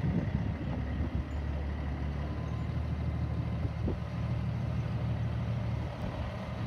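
A semi-truck tractor's diesel engine runs with a steady low drone as the unloaded tractor drives slowly across a gravel yard.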